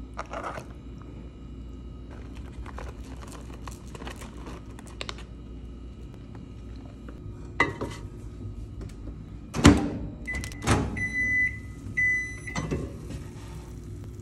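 Food being handled and a cup set into a microwave oven: a few light clicks, then sharp knocks of the door and the cup, followed by about three high, even beeps from the microwave and another knock near the end, over a steady low hum.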